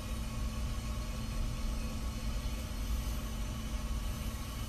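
Steady low machine hum with a faint steady tone above it, unchanging throughout.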